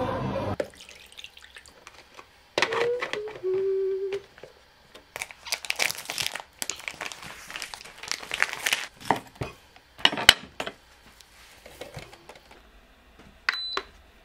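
Plastic packaging crinkling in several bursts as a packaged glutinous-rice blood sausage is handled. A brief low tone sounds about three seconds in, a sharp click about ten seconds in, and a short high beep near the end.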